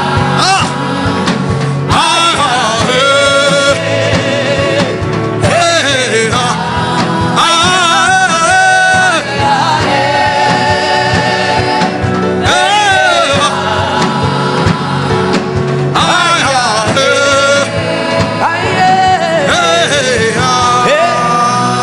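Gospel worship music with singing: a voice holding long, gliding melodic notes in phrases of a few seconds over a steady accompaniment.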